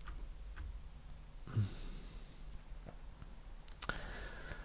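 A quiet room with a low steady hum. About one and a half seconds in, the reader lets out a short soft sigh, and a few faint clicks, mouse clicks, come through, two of them close together near the end.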